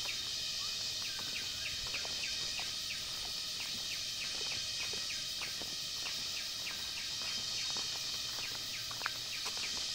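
Forest ambience: a steady high-pitched insect chorus, with a string of short, quick chirps repeating over it.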